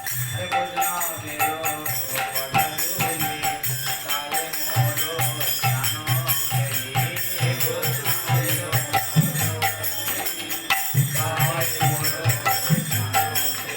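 Devotional kirtan: voices singing a chant with jingling hand cymbals and a steady drum beat.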